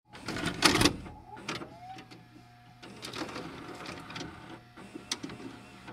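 A VCR loading a VHS tape: a loud clunk near the start, then a series of mechanical clicks and knocks over a steady low hum, with a short rising motor whine a little after a second in.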